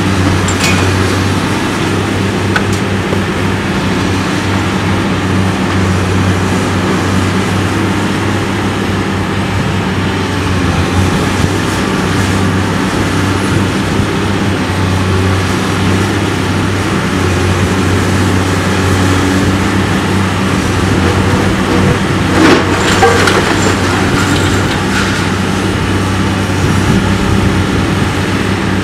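Caterpillar hydraulic excavator's diesel engine running steadily under load while it tears down brick walls, with brick and rubble crashing down loudest about three-quarters of the way through.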